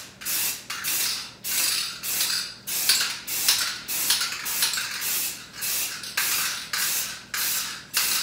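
Rust-Oleum aerosol spray can being sprayed onto window glass in short repeated blasts: a hiss a little under twice a second, each lasting under half a second, as the second coat of frosted-glass coating goes on.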